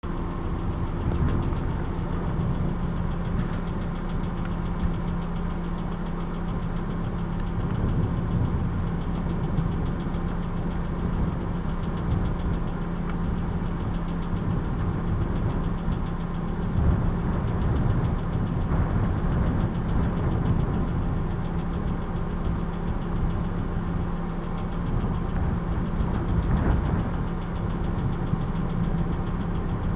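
A vehicle engine idling with a steady hum, while wind buffets the microphone in uneven low gusts.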